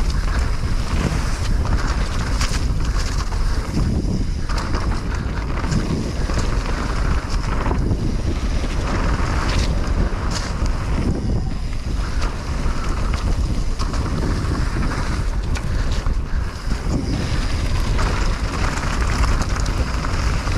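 Wind rushing over the microphone of a mountain biker's riding camera, a loud, steady rumble that swells and dips, with a few brief knocks and rattles from the bike.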